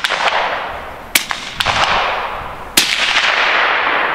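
Subsonic .300 AAC Blackout rifle rounds being fired: two sharp shots about a second and a half apart, each trailing off in a long echo, with fainter clicks in between.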